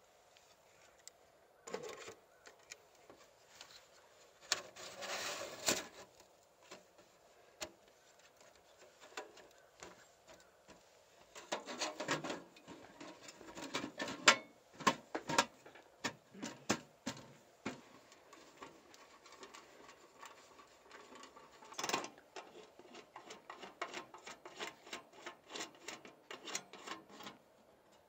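Panels of a folding titanium wood stove being handled and fitted together: metal scraping on metal in several spells, then a run of quick light clinks near the end.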